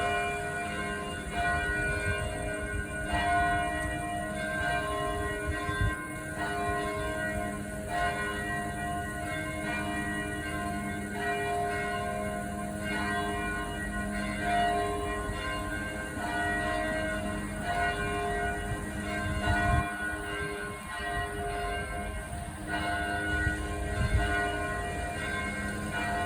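Church bells ringing continuously, several bells sounding over one another so their tones overlap and keep renewing, with a low rumbling noise underneath.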